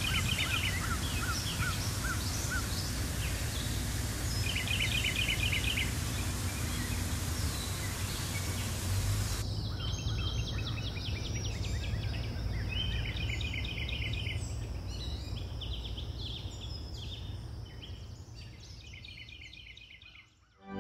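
A small waterfall splashes steadily while songbirds call over it, repeating a short trill every few seconds. The water's hiss drops about halfway through, and the whole sound fades out near the end.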